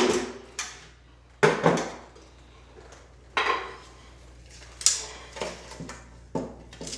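A handful of separate clinks and knocks, about six over several seconds, from hand tools and drywall being handled and set down during the measuring and marking.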